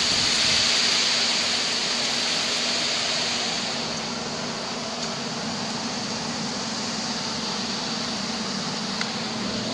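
Steady rushing noise of thunderstorm rain and wind through an open door or window, easing a little over the first few seconds.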